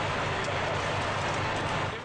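Steady running noise of a fishing boat's engine and deck machinery: a constant low hum under an even hiss.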